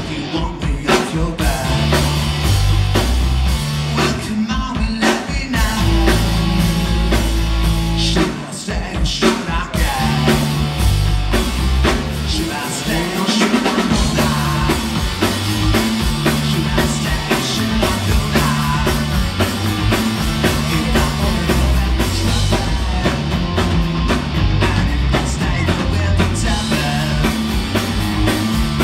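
Live rock band playing with electric guitars and a drum kit, a walking bass line underneath and sung vocals over the top, with a brief drop in loudness about eight seconds in.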